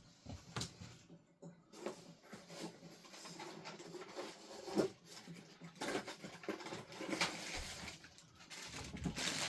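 Scattered light clicks, taps and rustles of small plastic model parts being handled and set down.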